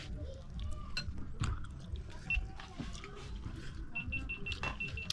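Scattered light clinks and knocks of a meal over a low background rumble. Near the end comes a rapid run of about seven short, high-pitched electronic beeps.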